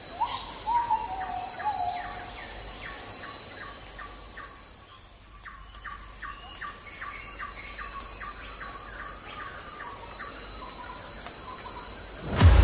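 Outdoor insect and bird sounds: a steady high insect trill with a quick, even series of short chirps, and a bird's whistled call in the first two seconds. A loud low hum cuts in just before the end.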